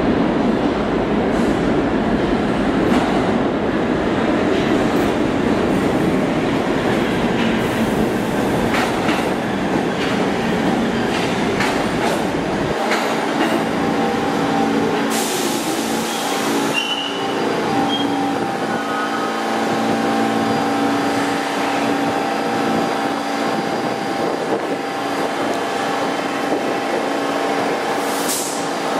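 New York City subway train running with a heavy low rumble that falls away sharply about halfway through. Steady tones remain, with a burst of hiss a couple of seconds later.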